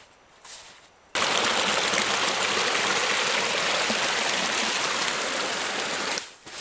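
Snowmelt stream rushing and splashing over rocks beneath a snowbank, coming in suddenly about a second in as a loud steady rush and cutting off near the end.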